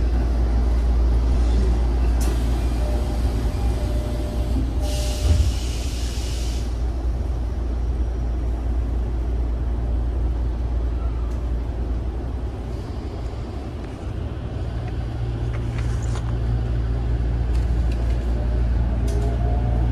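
Interior sound of a Tokyo Metro 05 series commuter train car: a steady low rumble and hum, with a short hiss of compressed air about five seconds in. In the second half a low motor hum comes up and grows louder as the train gets under way.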